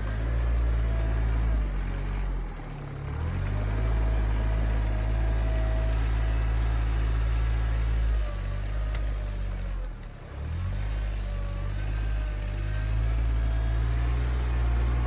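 Kioti RK24 compact tractor's diesel engine running steadily. It twice briefly drops in speed and loudness, about two and a half seconds in and again near ten seconds, and then picks back up.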